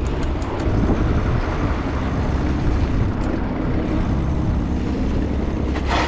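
Wind rushing over the camera's microphone and the tyres of a cross-country mountain bike rumbling over a paved stone path, with a few light rattles near the start and a sharper clatter just before the end.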